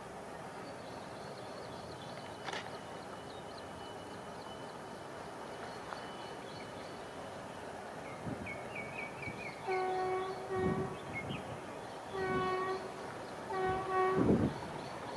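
WAP-7 electric locomotive's air horn sounding four short blasts of one steady pitch in the second half, two close together and then two more spaced a second or so apart.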